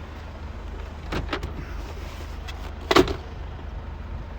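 Mercedes Sprinter 213 CDI's four-cylinder diesel engine idling, a steady low rumble, with the fridge unit running. A few light knocks sound over it, the sharpest about three seconds in.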